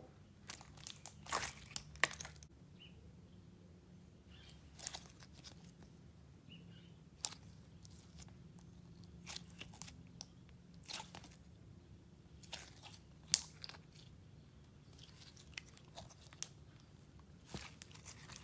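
Clear slime packed with fishbowl beads being stretched and squeezed by hand, giving scattered crunching crackles and pops at irregular intervals.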